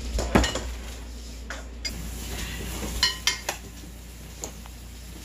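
Kitchen dishes and utensils knocking and clinking: a loud knock near the start, two more about one and a half to two seconds in, then three quick ringing clinks about three seconds in.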